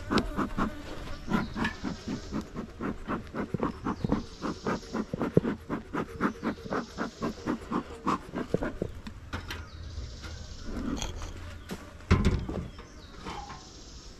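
Honeybees buzzing close around an opened hive, over a quick run of short taps or rustles, about three or four a second, through the first two thirds. A single heavy thump about twelve seconds in.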